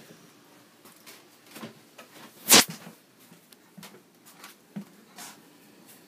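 Scattered light clicks and taps, with one loud sharp knock about two and a half seconds in.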